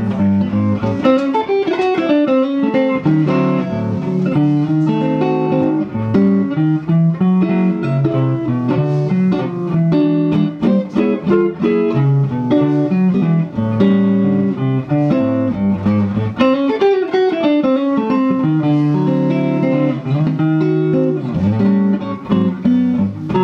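Fender electric guitar played through a 3 Monkeys Organ Grinder valve amplifier: a continuous run of picked notes and chords, the notes changing every fraction of a second.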